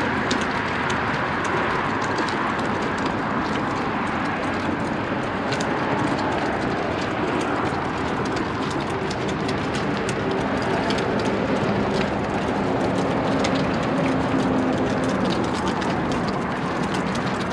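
Steady traffic noise from cars and trucks passing on the adjacent highway bridge, an even rushing sound with a faint low hum.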